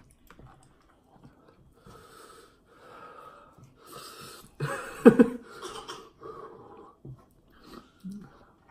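A man breathing hard and wheezing through his mouth, a run of breathy exhales about once a second that is loudest around the middle, from the burn of very spicy fire noodles.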